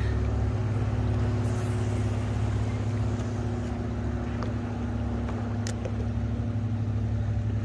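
Steady low hum of a running boat motor, with a constant tone over a rumbling wash. A couple of faint clicks sound about one and a half and five and a half seconds in.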